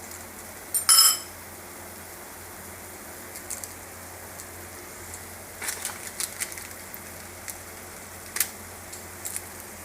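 Korean instant noodles cooking in a pan, sizzling steadily. A utensil clatters loudly against the pan about a second in, and lighter clicks of stirring follow later.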